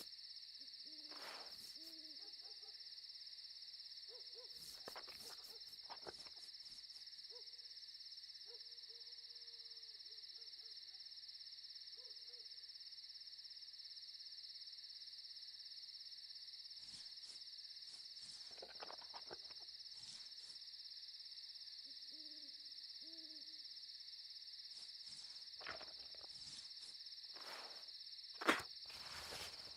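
Quiet night ambience: an owl hooting in short calls at intervals over a steady high hiss, with a few soft knocks.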